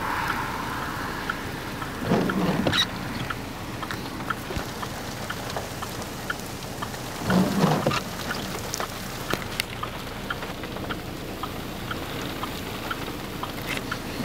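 Scattered raindrops ticking on a nearby surface over a steady hiss, with two brief louder swells, a couple of seconds in and again about halfway.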